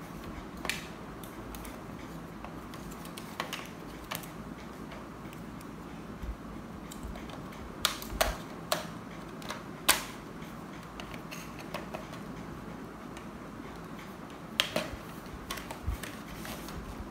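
Hard plastic toy rifle being handled: irregular sharp clicks and taps of its plastic parts, several close together about halfway through and again near the end, over a steady low hiss.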